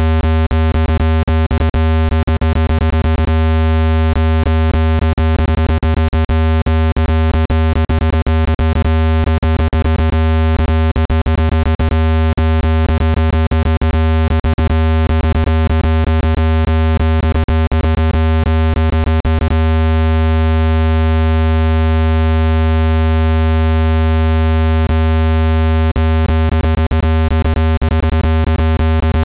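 Speaker-cleaning tone: a steady, loud, low-pitched synthesized buzz with many overtones, played to vibrate a phone speaker and shake dust out of its grille. Irregular clicks run through it and stop for a few seconds about two-thirds of the way through.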